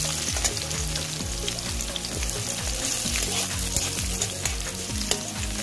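Sliced onions, bay leaves and whole spices sizzling in hot mustard oil in a metal wok, with clicks of a metal spatula stirring against the pan. Background music with a steady low beat runs under it.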